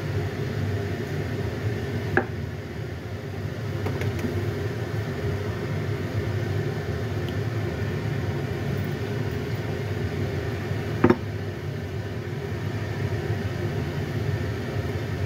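Steady low background rumble with two sharp knocks, a lighter one about two seconds in and a louder one about eleven seconds in. The knocks are a cleaver striking the wooden chopping board as firm tofu is cut.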